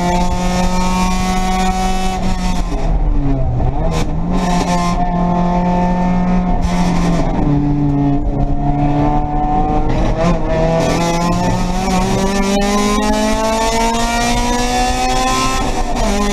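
Race car engine heard from inside the stripped cockpit under hard driving. The revs climb and drop repeatedly as the car shifts gears, with a lift and drop in revs about three seconds in.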